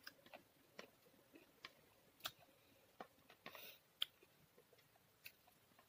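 Faint scattered clicks and soft smacks of someone eating a rice meal with their fingers, with a brief rustle about three and a half seconds in and a sharper click just after.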